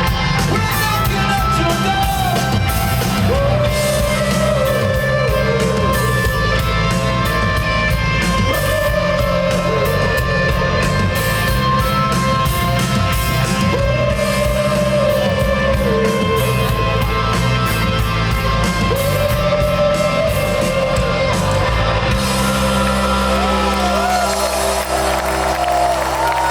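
Live rock band playing at full volume, with a sung vocal melody over drums, bass and guitar. About 22 seconds in the drums drop out, leaving a held chord under the voice.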